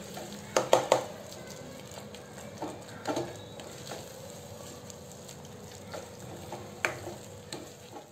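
Wooden spatula stirring and pressing a thick tomato-and-pea masala in a kadhai, scraping and knocking against the pan over a steady low sizzle of frying. The masala is being mashed while it fries so the tomatoes break down. The loudest knocks come in a quick cluster about a second in, with single ones later.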